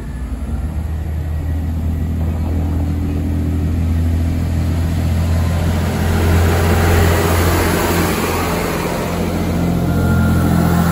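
Class 166 diesel multiple unit running into the platform: its underfloor diesel engines drone with a steady low tone and the wheels rumble on the rails, getting louder as the carriages draw level. A thin high squeal comes in near the end.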